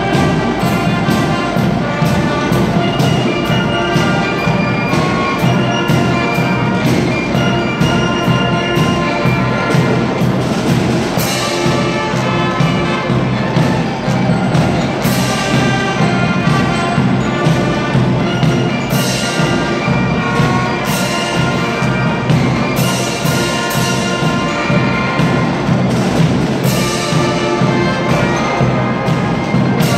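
Marching band of trombones, trumpets, saxophones and drums playing a piece together, with a steady drum beat under the brass.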